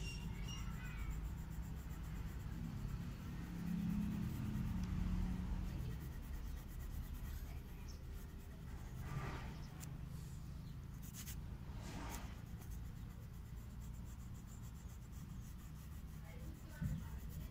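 Wax crayon scratching on paper as a drawn number is coloured in, faint strokes over a low steady hum, with two louder scrapes partway through.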